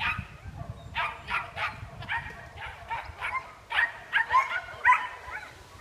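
Agility dog barking repeatedly as it runs the course: about a dozen short, high-pitched barks, coming quicker toward the end.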